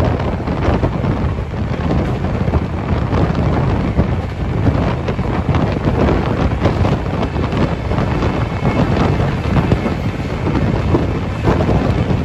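Loud, steady wind buffeting the microphone over the running noise of a passenger train at speed, heard from aboard a coach, with irregular rattles and clatter through it.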